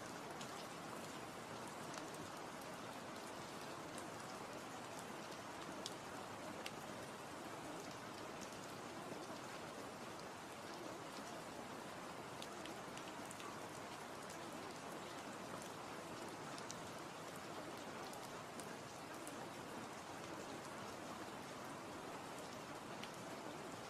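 Steady rain falling, with single drops ticking sharply here and there over the even patter.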